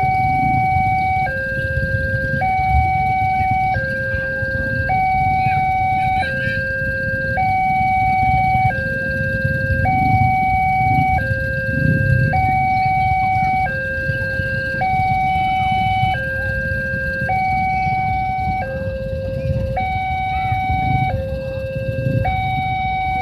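Railway level-crossing warning alarm sounding a two-tone signal, switching between a higher and a lower tone, each held a little over a second, to warn that a train is approaching. A low rumble runs underneath.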